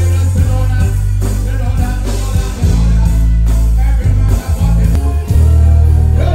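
Loud live music over a concert sound system: a heavy, booming bass line with a man singing into a microphone over it.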